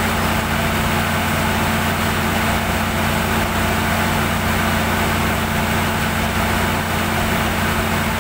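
Perkins diesel generator set running at a steady speed, its engine and generator giving an even, unbroken hum.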